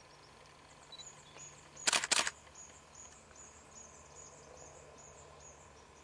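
A camera shutter clicks twice in quick succession about two seconds in, over a series of faint, high chirps in the background.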